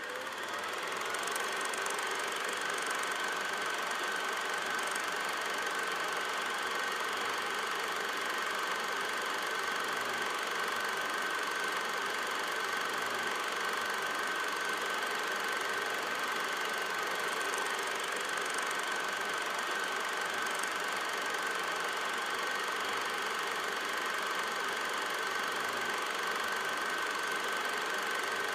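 Steady hiss and hum of an old film soundtrack with a constant high whine, fading in over about the first second.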